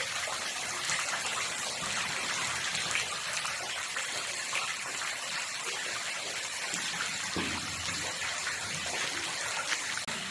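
Steady rushing and trickling of running water, an even hiss with no pauses.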